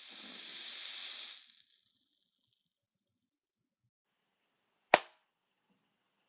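A burst of hissing spray that stops about a second and a half in and trails off. A single sharp click follows near the five-second mark.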